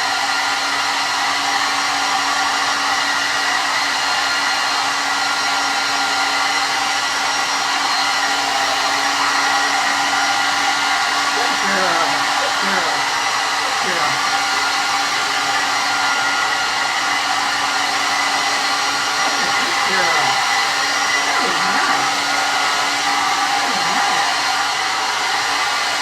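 Blow dryer running steadily on a damp dog's coat, a loud even blowing with a fixed whine.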